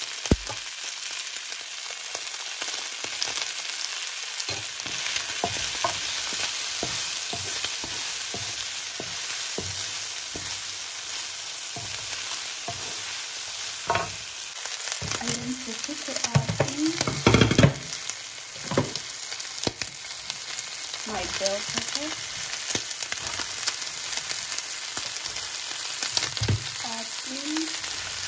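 Diced liver, sausage and vegetables sizzling steadily in a hot frying pan, stirred with a wooden spoon that scrapes and knocks against the pan. A louder burst of clatter and scraping comes about two thirds of the way through, when the chopped bell peppers go in.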